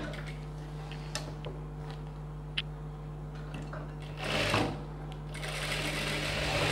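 Industrial single-needle sewing machine with its motor humming steadily, a few light clicks, and a brief louder swish about four seconds in. From about five seconds in the machine runs steadily, stitching the lining to the blouse edge.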